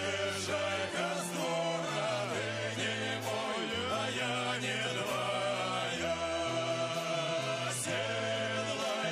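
Background music: a song with singing voices over a bass line that moves to a new note about every second.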